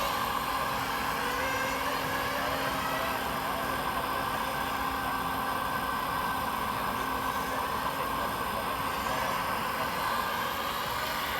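RC model trucks running: a steady engine-like drone with constant whine and no sudden events.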